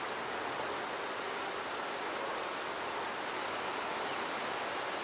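Steady hum of a mass of honeybees at an open hive, an even wash of sound with no breaks or sudden events.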